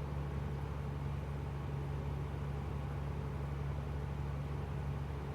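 Steady cabin drone of a 1965 Cessna 172G's Continental O-300 six-cylinder engine, throttled back on final approach: an even low hum with hiss.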